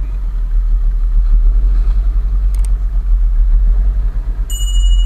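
Small boat's outboard motor running steadily, a dense low rumble. A thin high tone comes in near the end.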